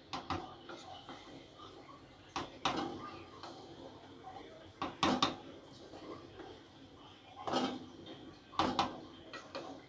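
Wooden spatula scraping and knocking against a non-stick pot while stirring and fluffing cooked khichuri, in about five strokes a couple of seconds apart.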